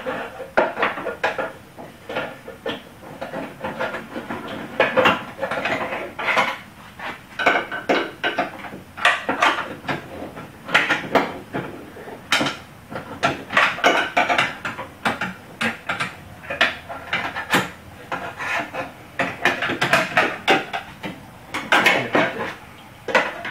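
Plastic retaining clips of a Toyota FJ Cruiser's cowl panel being broken and pried out by hand and tool: irregular clicks, snaps, knocks and scraping of hard plastic and metal, in clusters with short pauses.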